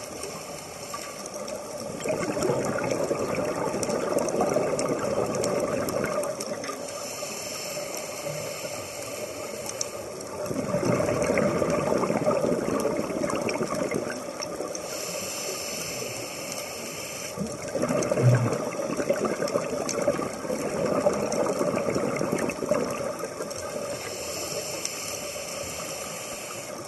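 Scuba diver breathing through a regulator underwater. Bursts of exhaled bubbles rattle and gurgle for a few seconds at a time, alternating with the quieter hiss of each inhalation, about three breaths in all.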